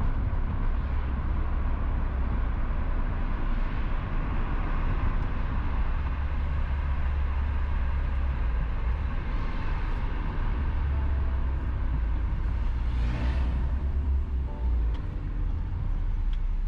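Volkswagen Golf Mk2 driving, a steady low engine and road rumble with tyre noise, and a brief swell of noise about thirteen seconds in.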